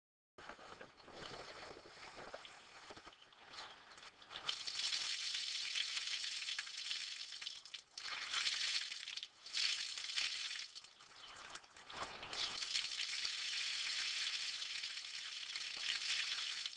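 Water poured from a bucket splashing over brake calipers and brackets on a metal mesh table, rinsing off the degreasing solution. It starts faint, grows louder about four seconds in, and breaks off briefly a few times near the middle.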